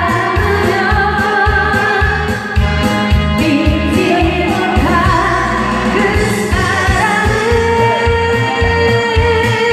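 A singer singing a Korean pop or trot song live over accompaniment with a steady drum beat.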